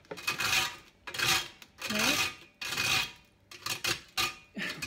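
Dry toasted bread being grated by hand on a stainless steel box grater, in a steady run of about seven scraping strokes, roughly one and a half a second.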